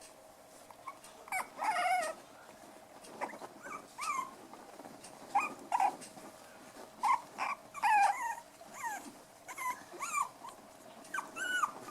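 Five-week-old poodle puppies at play, giving many short high-pitched yips and squeals that bend up and down in pitch, about one every half second or so, starting about a second in.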